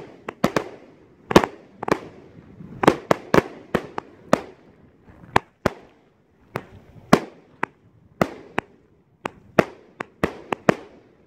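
A 260-shot fireworks cake firing: sharp bangs from the shells, about two a second at an uneven pace, some in quick pairs, each trailing off briefly.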